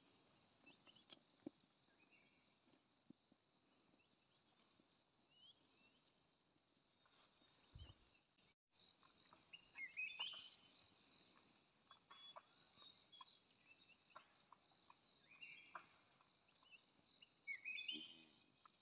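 Faint insect chorus: a steady, high-pitched trilling buzz, with a few short chirps about ten seconds in and again near the end.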